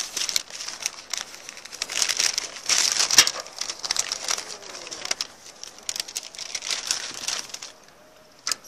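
A paper bag crinkling and rustling as it is opened and handled. It stops about a second before the end, followed by a single sharp click.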